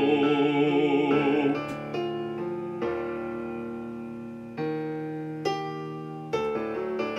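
A baritone holds a sung note with vibrato for about the first second and a half. Then the piano accompaniment plays alone: several chords, each struck and left to ring and fade.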